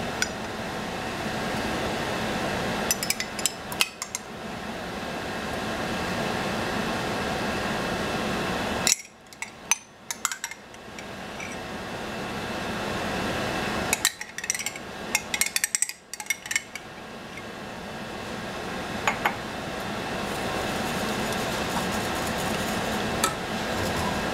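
A metal spoon scrapes and clinks against a glass jar and a stainless saucepan as yogurt starter is scooped into warmed milk for yogurt-making. Scattered sharp clinks sit over a steady background noise that cuts out briefly twice.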